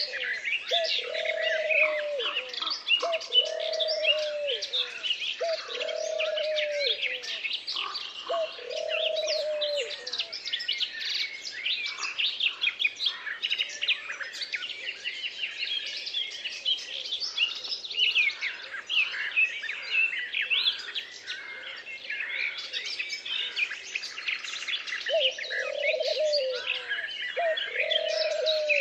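A chorus of songbirds chirping and singing without pause. Under it a lower call repeats about every second and a half, through the first ten seconds and again near the end.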